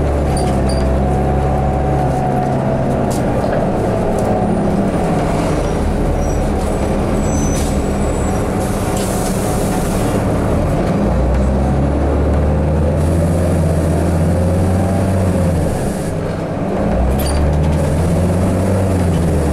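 Interior of a 2006 New Flyer D40i diesel city bus under way: a steady engine and drivetrain drone over road noise, with faint rattles and squeaks. The low engine drone fades for several seconds and then comes back, with a short dip near the end.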